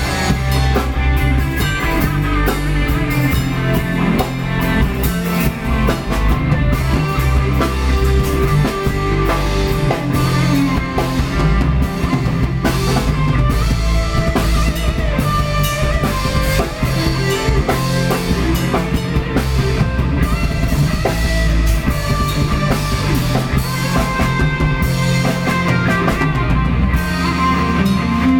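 Instrumental break of a Thai pop-rock song: band music with drum kit and electric guitar, no singing.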